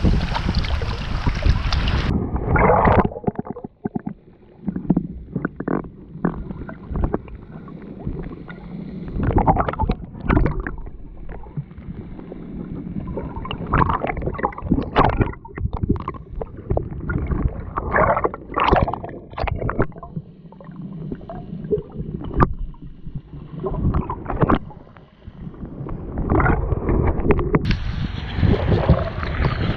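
Waves washing on the shore with wind on the microphone. About two seconds in, the sound turns muffled, with irregular sloshing and short knocks. The open surf and wind return near the end.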